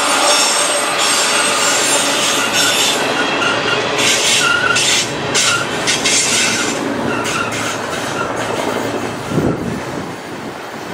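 Freight train's steel wheels squealing and screeching on a curve as the last flatcars roll past, with clicking over the rail joints. The squeal thins out and the sound fades over the last few seconds, with one short thump about nine seconds in.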